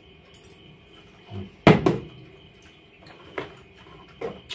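Plastic water bottle knocking against a tiled floor during a bottle flip: one sharp knock about one and a half seconds in, then a few lighter knocks.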